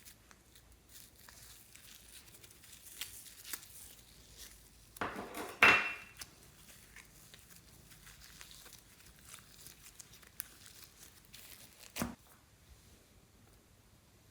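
Slime being handled and mixed, with soft crackling and small clicks throughout. A louder clatter with a brief ringing note comes about five to six seconds in, and a single sharp click near twelve seconds.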